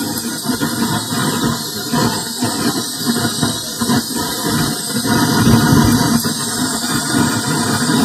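Hi-Cook butane gas torch burning with a steady hiss, a little louder about two-thirds of the way in. Its flame is held on a refrigerator's thin aluminium evaporator to braze a leak with aluminium rod.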